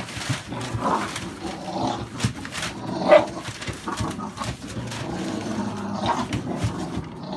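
Two American Staffordshire Bully puppies play-fighting and tugging a rag, giving short growls and yips, with newspaper crinkling and rustling under their paws. The loudest yelp comes about three seconds in.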